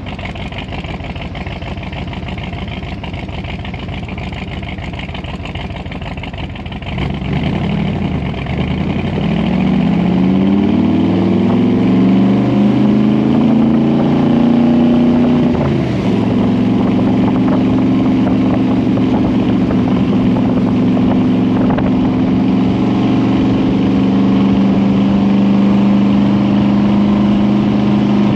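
Ford 427 FE side-oiler V8 on eight-stack Weber carburetors, driving: a low, rough rumble for several seconds, then the engine note climbs as it accelerates. The note drops at a gear change about halfway through and then holds steady at cruising speed.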